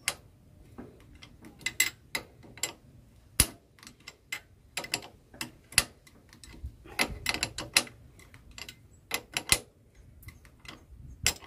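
Metal spanner clicking and clinking against a bicycle pedal's spindle and crank as the pedal is tightened on by hand. The clicks come irregularly, with one sharper knock about three and a half seconds in.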